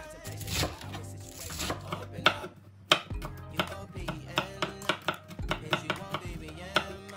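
Kitchen knife slicing carrots on a cutting board: quick, evenly spaced strokes, several a second, starting about two seconds in, over background music.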